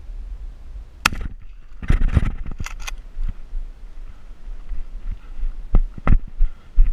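Single shotgun blast from a Benelli about a second in, followed by rustling, knocks and a few heavy thumps of the shooter scrambling up and moving off through the grass.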